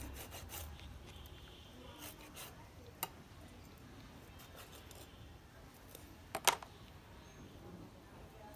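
Kitchen knife clicking and knocking on a plastic cutting board as a pufferfish is cut up: a few sharp knocks, the loudest a quick double knock about six and a half seconds in.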